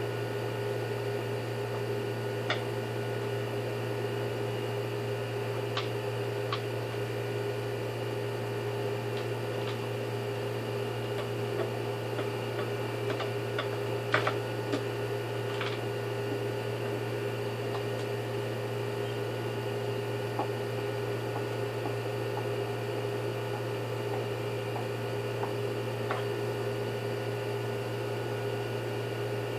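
Steady electrical hum with several constant tones, broken now and then by a few light clicks and taps.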